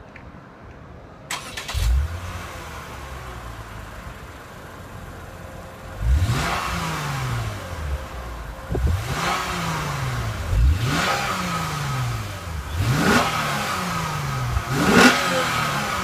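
Lexus IS350 F-Sport's 3.5-litre V6 exhaust, heard at the tailpipes. The engine starts with a brief flare about two seconds in and settles to idle. From about six seconds on it is blipped five times, each rev rising quickly and falling back to idle.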